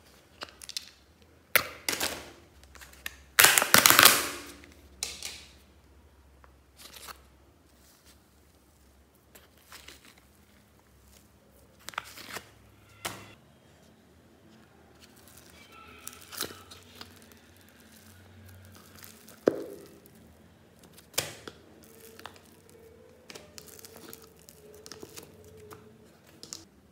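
Old slime being pried out of a clear plastic tub with a metal fork and dumped into a plastic bag: irregular plastic crinkling, clicks and knocks, with the loudest burst of crinkling about four seconds in.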